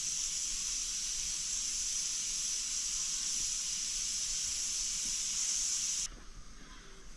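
A steady high-pitched hiss, even and without crackle, that cuts off suddenly about six seconds in.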